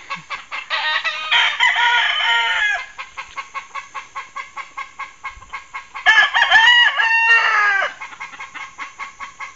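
Gamecock roosters crowing twice, one long crow about a second in and another about six seconds in, over a steady rapid ticking of about four pulses a second.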